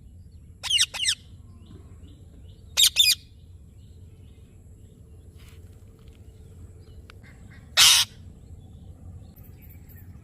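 Indian ringneck parrot giving short, shrill calls: a quick pair about a second in, another pair near three seconds, and a single louder call near eight seconds, over a low steady hum.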